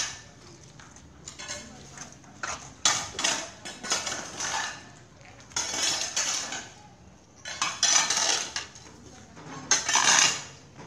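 Metal hand tools scraping and clanking on concrete and asphalt as sludge and debris are cleared from a roadside drain, in repeated strokes about one every second and a half.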